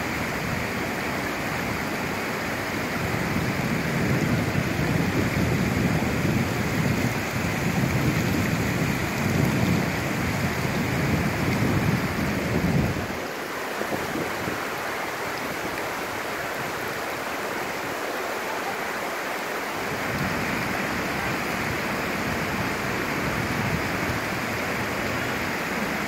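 Steady rush of a creek's flowing water. A low rumble lies under it through the first half and cuts off suddenly about halfway.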